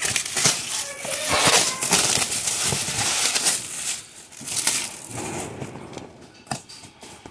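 Clear plastic wrap crinkling loudly as it is torn and peeled off a cardboard box, then quieter handling of the box with a few light knocks, one sharper about two-thirds of the way in.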